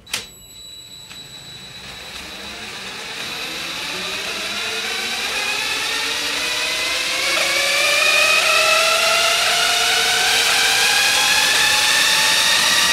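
Cordless drill spinning up a dune-buggy wheel and tire on its hub, run to check the tire's balance. Its whine rises steadily in pitch and loudness for about eight seconds, then holds steady at full speed.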